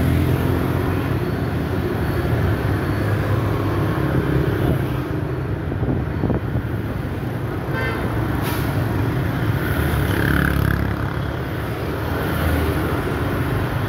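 Busy city road traffic: a steady mix of motorbike and car engines and tyre noise as vehicles pass close by, with a few short clicks and higher sounds over the rumble.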